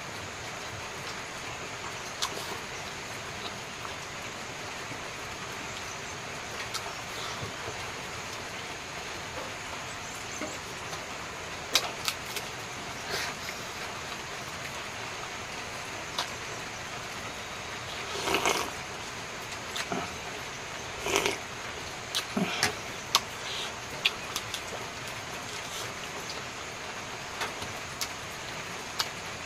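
Close-up eating sounds of a person chewing rice and fresh mustard greens: scattered wet mouth clicks and smacks, busiest and loudest in a cluster past the middle, over a steady background hiss.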